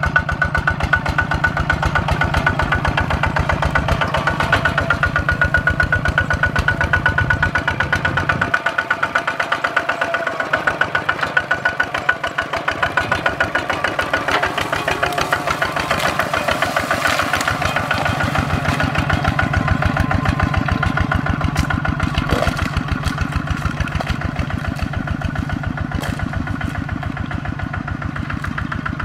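Kubota ZT140 single-cylinder diesel engine of a two-wheel walking tractor running under load with a steady, rapid chugging. Its deepest note drops away briefly about a third of the way in.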